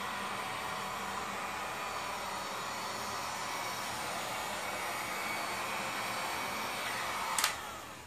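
Heat gun blowing steadily with a faint whine, switched off with a click near the end, its noise dying away.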